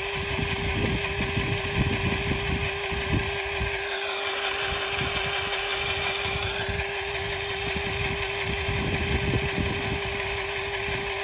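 Cordless grease gun running continuously with its trigger held on, pumping grease into a seized tractor engine to force the piston down: a steady motor hum, its higher whine wavering around the middle.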